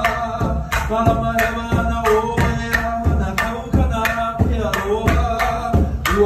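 Live hula music: a man chanting over a hand drum struck in a steady beat, about three strikes a second.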